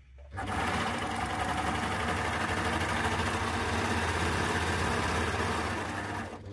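Baby Lock Primo coverstitch machine sewing at a steady speed, a fast even stitching run that starts about half a second in and eases off near the end.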